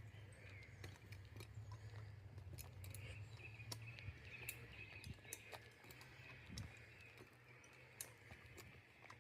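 Near silence: faint outdoor ambience with many scattered, irregular light clicks.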